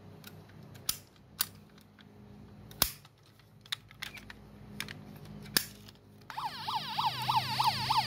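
Scattered small clicks as a toy ambulance's doors and parts are handled, then about six seconds in its electronic siren starts: a fast rising-and-falling wail, about three cycles a second.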